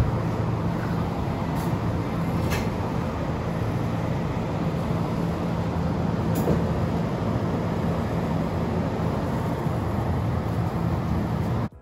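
Steady low hum and rushing noise of a convenience store's refrigerated aisles, with a few faint clicks. It cuts off suddenly just before the end.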